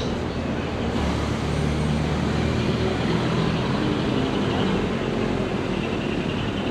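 Steady rumble of road traffic with a low engine hum running under it.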